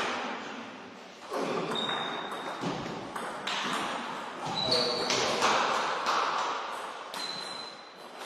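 Table tennis balls clicking off bats and tables during play, echoing in a large sports hall, with a few short high squeaks.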